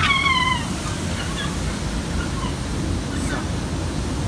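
Gulls calling in alarm: one loud call that falls in pitch right at the start, then scattered fainter calls, over a steady rumble of wind on the microphone. The gulls are agitated, defending chicks nesting on the roof.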